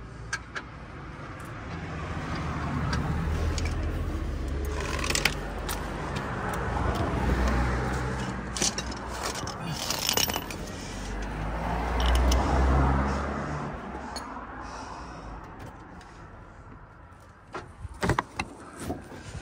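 Road vehicles passing by, each a low engine hum with tyre noise that swells and fades, about three in turn, with a few sharp metallic clinks of tools on the car in between.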